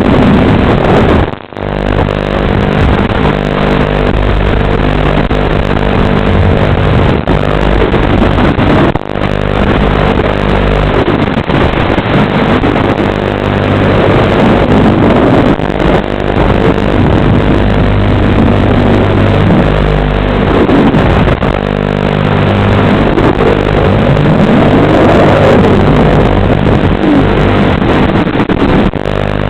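A 6-inch FPV quadcopter's brushless motors and propellers buzzing loudly under constant throttle changes, the pitch rising and falling repeatedly as it flips and rolls. The sound dips sharply for a moment about a second and a half in.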